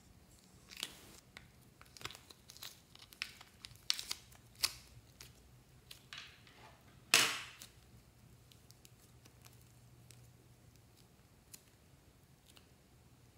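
Soft modelling clay being peeled out of a plastic mould: sticky tearing and crackling with small clicks from the plastic. The loudest is a sharp crackle about seven seconds in, and then it goes quiet.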